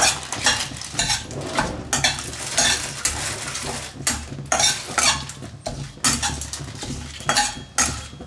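Spatula scraping and stirring whole spices in ghee in a kadai (Indian wok), in repeated strokes about twice a second.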